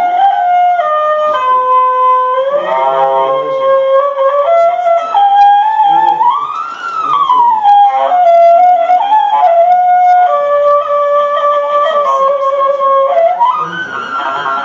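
Homemade overtone hurdy-gurdy, built from a sewing machine and fitted with a gramophone horn, playing one sustained wheel-bowed string tone. The tone jumps in steps between overtones, and about halfway through it swoops up and back down.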